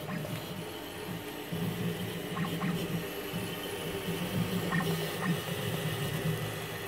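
Zortrax FDM 3D printer running a print: the stepper motors drive the print head in quick moves, making a low whirring whose pitch keeps changing from one move to the next. A few faint clicks come about two and a half seconds and five seconds in.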